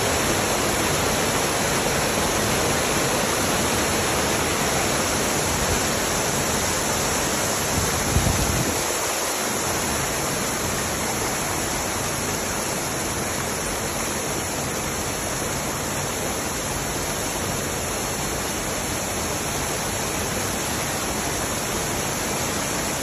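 Floodwater rushing steadily through a debris-clogged metal drain grate, a constant even roar of falling water. A brief low thump about eight seconds in.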